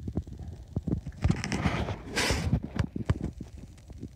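Handling noise from a handheld phone camera being moved in close: irregular soft low thumps and rubbing, with a brief rustling hiss about two seconds in.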